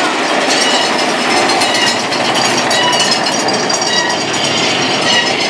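Mine-train roller coaster cars rolling through a tunnel: a steady rumble and clatter of wheels on track.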